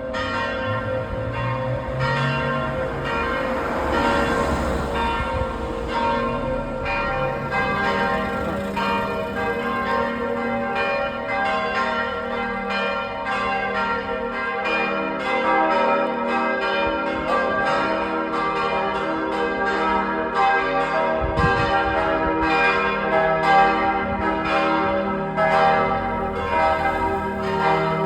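Several church bells ringing together in a continuous peal: frequent overlapping strikes, each tone ringing on under the next.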